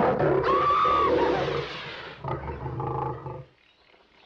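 Lion roaring, loud for about two seconds, then weaker, and cutting off about three and a half seconds in.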